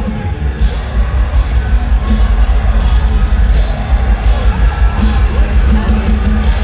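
Metalcore band playing live at full volume: heavy, pounding drums and bass with distorted guitars, heard loud and dense from within the audience.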